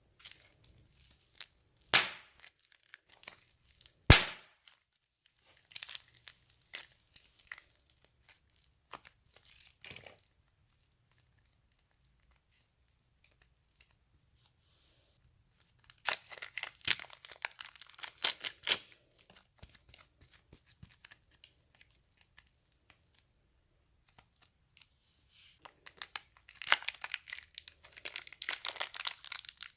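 Crinkling and crackling from slime-making materials being worked by hand, in bursts with pauses between. There are two sharp clicks in the first few seconds.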